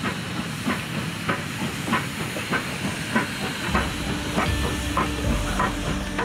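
Steam locomotive working a train, its exhaust chuffing steadily at about three beats every two seconds over a hiss of steam. A low rumble and steady tones come in about four seconds in.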